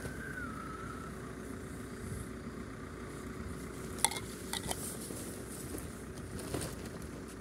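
Wind noise on the microphone, with two sharp clacks about four seconds in, half a second apart, as the four-line kite's plastic control handles knock together.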